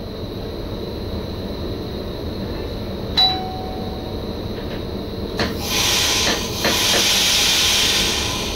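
Cab sounds of an NS Sprinter (SGM) electric train: a steady low hum, with a single click and short ding about three seconds in. Around five and a half seconds in come a few clicks and then a loud hiss of escaping air lasting about three seconds.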